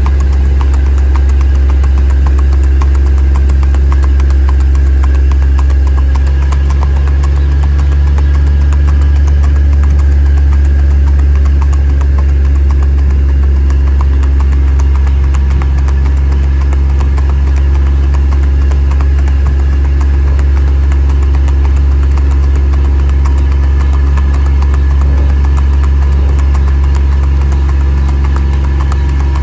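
Steady low drone of a vehicle engine running slowly at a walking pace, with faint quick clicks of a gaited horse's shod hooves on pavement under it.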